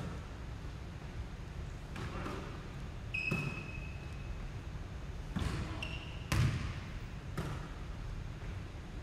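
Basketball bouncing and thudding on a hardwood gym floor, about five impacts roughly a second apart, the loudest about six seconds in, with a short high squeak about three seconds in.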